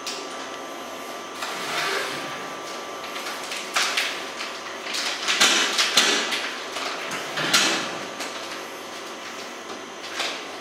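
Plastic film being pulled off the roll of a countertop film-wrapping machine and worked around a tray, with irregular crinkling and scraping rustles that are busiest in the middle.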